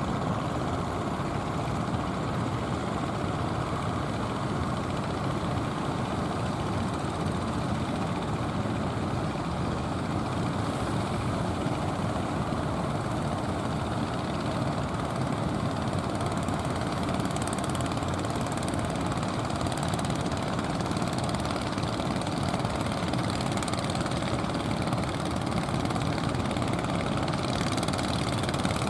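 An engine running steadily, with a constant rumble and a faint steady hum.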